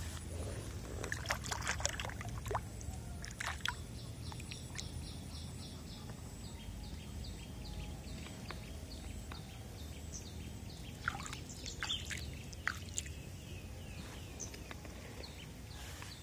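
Small scattered splashes and sloshing at the surface of a pond crowded with koi. A bird chirps a quick repeated call in the background through the middle part.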